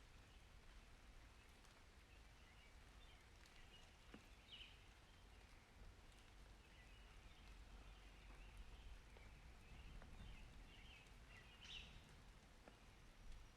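Very faint rain-and-nature ambience: a soft, even hiss over a low rumble, with a few faint bird chirps, the clearest about four and a half and about twelve seconds in.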